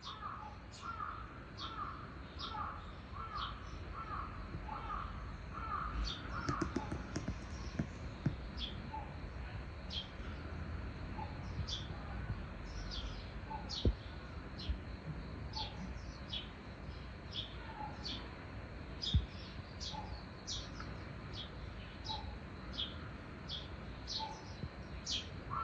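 Small birds chirping, short high calls repeated on and off throughout, with a run of lower calls about twice a second over the first several seconds. A steady low background rumble runs underneath, and two sharp knocks stand out, one about halfway through and one a few seconds later.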